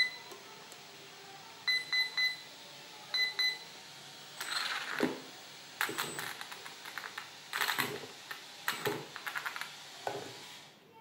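Electronic speed controller confirmation beeps during throttle calibration: short high beeps in groups, a couple, then three, then two. From about four seconds in come several short bursts of rushing noise.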